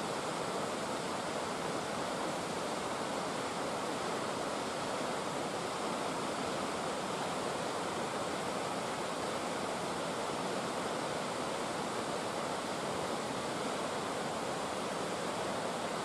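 A tall mountain waterfall's water falling and rushing steadily, an even, unbroken noise.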